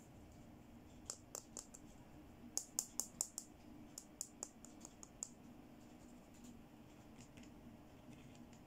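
Small hard plastic toy perfume bottle clicking and tapping in the fingers as it is handled: a string of sharp little clicks, thickest about three seconds in, then a few fainter ones.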